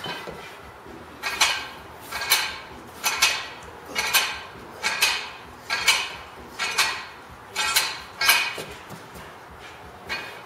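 Loaded barbell clinking as its iron weight plates rattle on the sleeves with each lifting rep: about eight metallic clinks, roughly one a second, some doubled, stopping about two seconds before the end.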